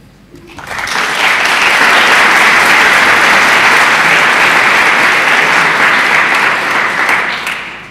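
Audience applauding, swelling in within the first second, holding steady, then dying away near the end.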